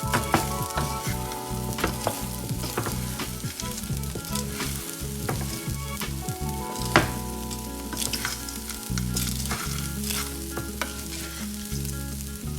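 Food frying in hot oil in a cooking pot while a spoon stirs it, with a continuous sizzle and frequent sharp knocks and scrapes of the spoon against the pot, the loudest about seven seconds in.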